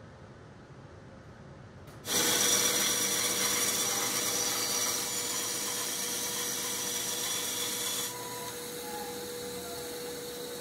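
Band saw cutting along a curve through a pine 2x4 board, starting suddenly about two seconds in as the blade enters the wood, and dropping in level about eight seconds in.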